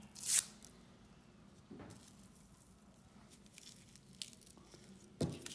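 Filled cigarette paper tube being torn open by hand: a short sharp rip about a quarter second in, then faint crackles and rustles of paper and tobacco, with another short sharp sound near the end.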